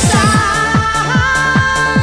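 Eurodance track: a steady kick-drum beat, with a quick run of hits near the start, under long held lead notes.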